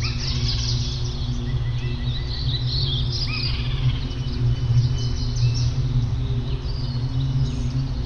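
Many small birds chirping and calling, with short arching and whistled notes, over a steady low drone of ambient background music.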